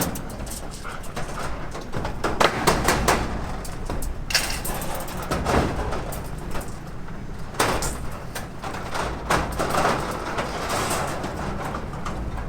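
Irregular knocks and clatter over a steady low rumble.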